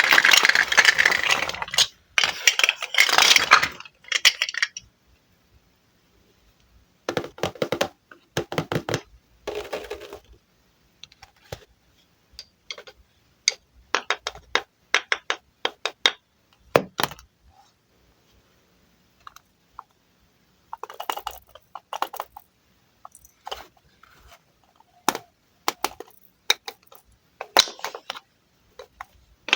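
Wooden toy fruit being cut and handled: a dense clattering for about the first four seconds, then scattered sharp clicks and light taps in short clusters with pauses between them.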